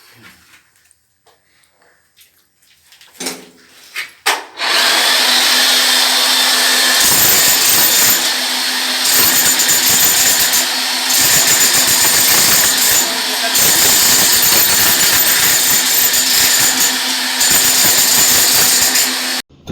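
A handheld power tool running loud and steady for about fifteen seconds, its low end dropping away several times as the load on it changes, then cutting off suddenly just before the end. A few short knocks come before it starts.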